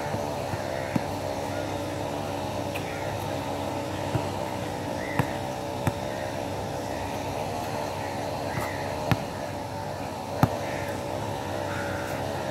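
A basketball bouncing on an outdoor hard court: a handful of sharp, unevenly spaced bounces. Underneath runs a steady droning hum whose pitch wavers.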